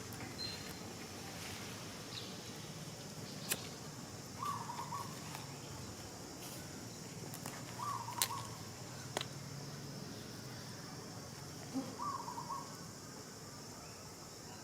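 Three short animal calls, about four seconds apart, over a steady high hiss, with a few sharp clicks in between.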